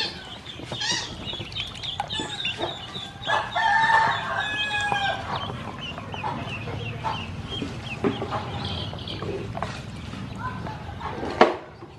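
Ducklings peeping: a quick run of short, high, falling peeps, with a louder, lower call about four seconds in and a sharp knock near the end.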